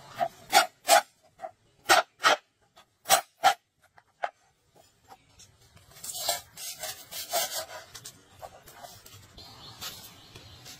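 A cleaver blade scraping across a wooden chopping board in short, sharp strokes, mostly in pairs, about six in all. About six seconds in comes a longer, rougher rubbing as a lemongrass stalk is worked on the board, tailing off near the end.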